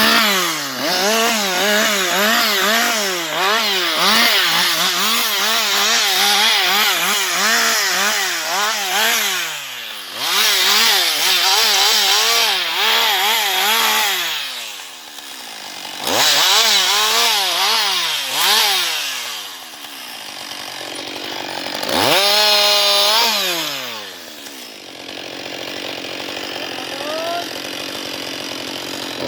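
Husqvarna 560XP two-stroke chainsaw cutting wood in several spells, its engine pitch wavering up and down under load, with short drops between cuts. Near the end it revs briefly, then settles to a quieter idle.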